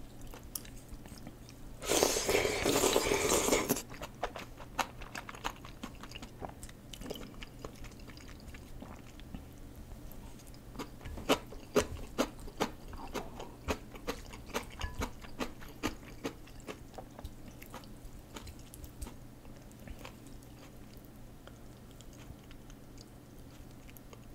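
A person eating curry ramen noodles up close: a loud slurp of noodles lasting nearly two seconds, about two seconds in, then chewing with many wet clicks and smacks, busiest around the middle and thinning toward the end.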